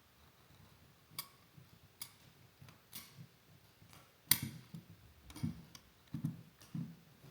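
Scattered light clicks and soft knocks, the loudest about four seconds in: hands handling a wooden template and picking at the backing of double-sided tape on a workbench.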